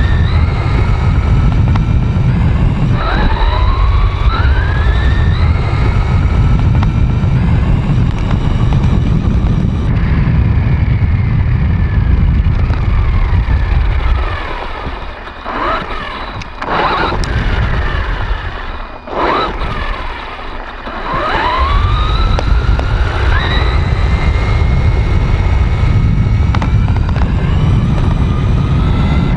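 A fast RC car driving, with a heavy low rumble under a motor whine. The whine climbs in pitch as the car accelerates, about three seconds in and again about twenty-two seconds in, and falls away as it slows. The sound dips and surges in the middle as the throttle comes on and off.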